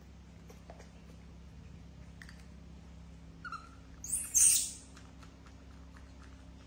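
A pet monkey gives a short high squeak, then about half a second later a louder, shrill squeal lasting under a second, over a steady low hum.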